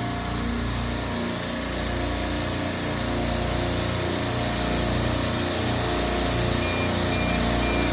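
Refrigeration compressor rack running steadily, a constant mechanical hum with a low, wavering throb. A few faint, short high beeps come near the end.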